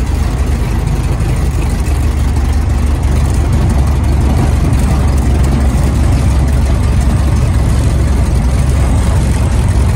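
Auster light aircraft's piston engine running at low power, heard from inside the cockpit as the plane rolls along a grass strip after landing: a steady low drone that gets slightly louder about three seconds in.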